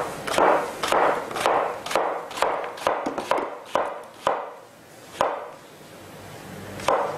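Chef's knife chopping vegetables on a wooden cutting board: a run of firm knocks about two a second, thinning out to a few single cuts in the second half.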